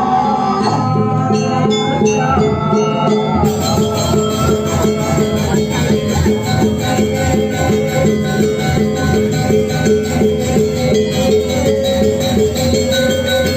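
Balinese gamelan music: tuned metal percussion ringing out in a steady, fast pulse of about four strokes a second, getting brighter about three and a half seconds in.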